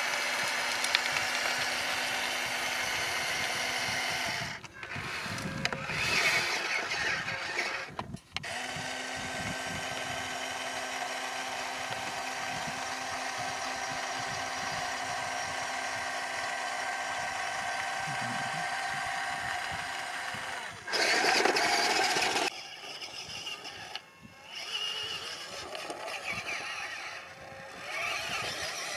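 Remote-control model dump truck's electric drive whining steadily, cutting out and picking up again a few times. About three-quarters of the way through comes a short, louder rush of noise, then quieter, uneven mechanical whirring.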